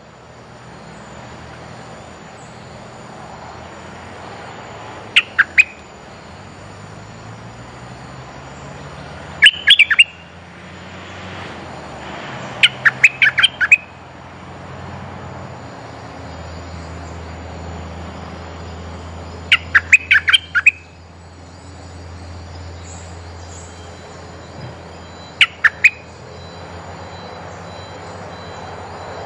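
Merbah lekir, a bulbul kept as a caged decoy, calling in five short, loud bursts of several quick notes each, a few seconds apart, over faint steady background.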